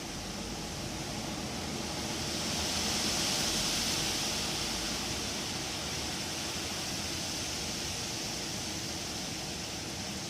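Wind gusting through trees, a steady leafy rush that swells to a stronger gust from about two to five seconds in, then eases back.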